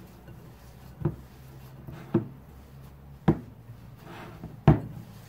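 Glass mixing bowl knocking dully on the countertop as cauliflower dough is pressed and kneaded by hand: four knocks about a second apart, the last one loudest.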